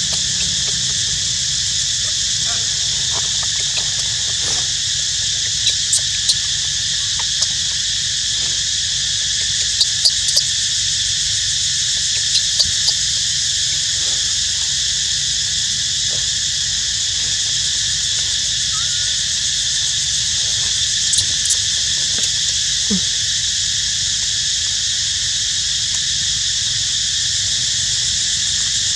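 Steady high-pitched chorus of insects droning without a break, with a few short faint clicks scattered through it.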